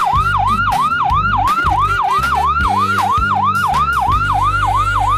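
Ambulance siren in a fast yelp, its pitch sweeping up and down about four times a second.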